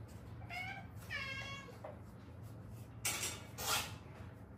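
Domestic cat meowing: a short meow, then a longer one about a second in. A little after three seconds come two short, breathy bursts of noise.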